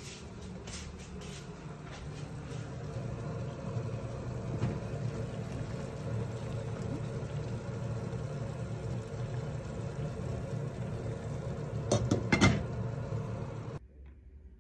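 Steady low rumbling hum of a pot at a rolling boil on a stovetop, with a few light clicks in the first second or so and two louder knocks about twelve seconds in; it cuts off suddenly shortly before the end.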